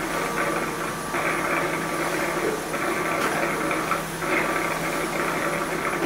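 Hejhome G7 Hyper robot vacuum's base station running with the robot docked: a steady motor whirr with a hum and an even rushing noise, its upper part rising and falling slightly, as the station works on the docked robot.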